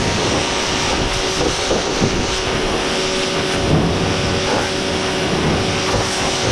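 Pressure washer running steadily, its water jet spraying against a rusted sheet-steel cabinet.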